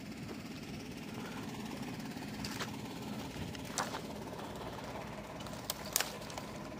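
Dry branches and thorny brush being pushed and dragged aside by hand and foot: a few sharp snaps and crackles of twigs, the loudest about six seconds in, over a steady low engine hum.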